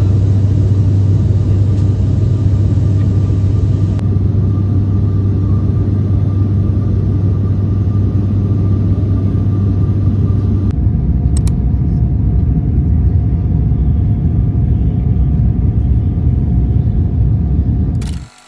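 Airliner cabin noise in flight: the steady low rumble of the engines and airflow heard inside the cabin, with a faint steady hum over it. The rumble shifts slightly about 4 and 11 seconds in, then cuts off suddenly near the end.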